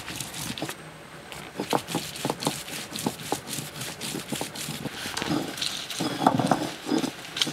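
Stone roller worked back and forth over a flat stone grinding slab (ammikkallu), crushing grated coconut, curry leaves and spices into a wet paste for aviyal. It gives an irregular run of gritty scrapes and knocks, louder in the second half.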